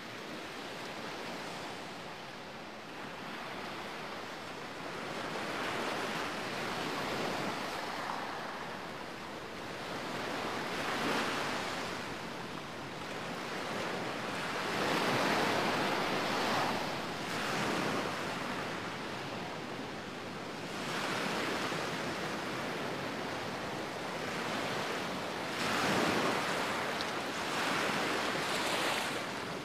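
Sea surf breaking and washing up a sandy beach, the noise swelling and falling back every few seconds as each wave comes in, loudest about halfway through and again near the end.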